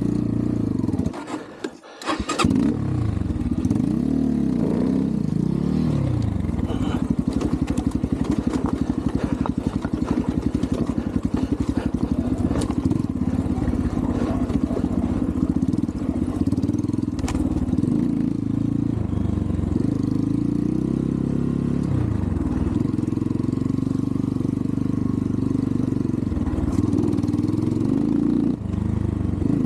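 Single-cylinder engine of an Xpro Templar X 250cc dirt bike. About a second in it cuts out briefly, then starts and runs again, its revs rising and falling as it is ridden. The carburettor's idle screw is set too low, which makes it bog and stall.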